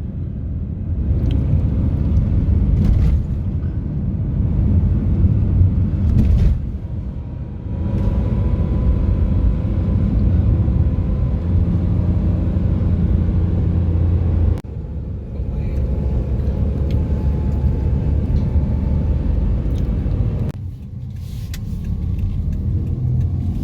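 Car in motion heard from inside the cabin: a steady low rumble of engine and tyre noise on the road, dipping suddenly a few times.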